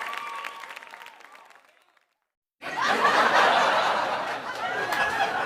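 Crowd applause and cheering fading out, then after a short silence an audience bursting into laughter, starting suddenly about two and a half seconds in.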